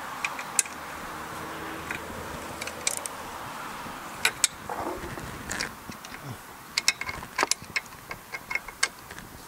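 Ratchet wrench clicking in short, irregular runs as the cylinder head bolts of a small overhead-valve engine are run down and snugged by hand in a crisscross sequence.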